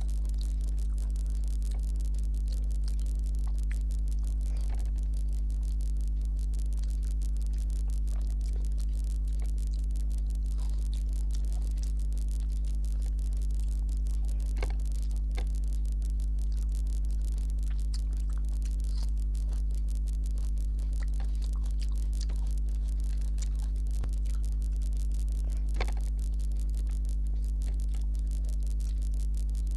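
A steady low electrical hum, with faint scattered wet clicks and smacks of a hand mixing rice with kadhi on a plate and of chewing. A few sharper clicks come about halfway through and near the end.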